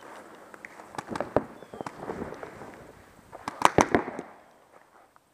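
Paintball markers firing in rapid strings of sharp pops: a burst about a second in and a louder, tighter burst at about three and a half seconds.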